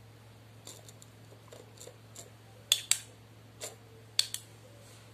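Light clicks and taps of makeup things being handled on a table, such as plastic cases and a brush. There are a few faint ticks at first, then sharper clicks that come in close pairs about three seconds in and again a little after four seconds.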